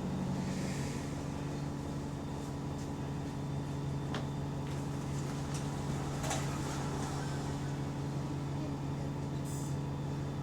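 Bus engine running steadily, heard from inside the bus, on a bus with an exhaust leak. Its hum drops in pitch about a second in and then holds steady.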